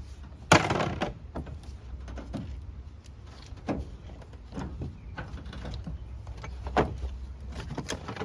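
Metal clinks and knocks of hand tools and loose bolts on a small-block Chevy 350 engine being unbolted during a teardown: one sharp clank about half a second in, then scattered lighter clicks.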